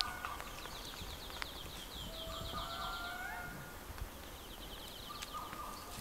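Rainforest ambience with bird calls: a rapid trill of short, rising high chirps from about one to three seconds in, over long, steady whistled notes that rise at their ends.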